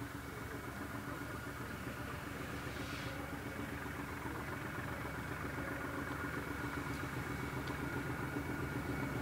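BR Class 14 diesel-hydraulic shunter's Paxman Ventura engine running as the locomotive approaches slowly, a steady engine hum with a high whine over it, getting gradually louder.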